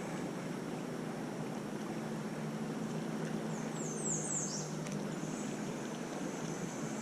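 Steady outdoor wind-and-water noise, with a bird calling about halfway through: four quick, high, falling chirps, then a thin high note held for a couple of seconds.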